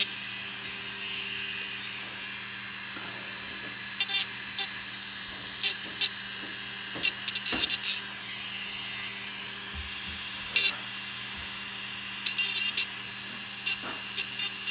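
Short hand strokes scraping across the steel fin of a Glock trigger bar, rounding off its sharp, rough-cut edges. The strokes come singly or in quick clusters, with pauses between.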